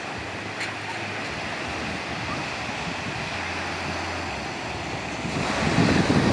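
Sea waves washing onto a beach: a steady rush of surf that swells louder, with a deeper rumble, near the end as a wave breaks.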